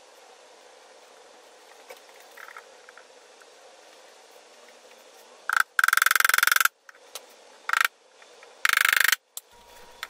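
Irwin one-handed bar clamp being squeezed tight: three loud bursts of rapid ratcheting clicks, the first lasting about a second and the next two shorter.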